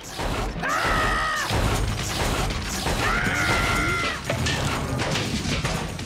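Cartoon sound effects of cannery conveyor machinery clattering and rattling, with music underneath. Two held high tones sound over it, one just under a second in and another about three seconds in.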